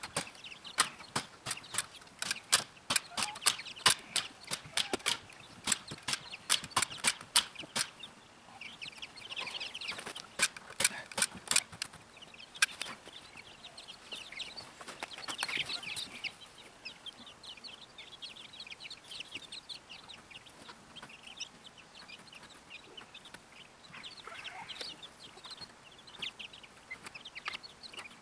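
Chickens clucking inside a wire-sided coop. For roughly the first twelve seconds a rapid run of sharp clicks, about three a second, is louder than the birds.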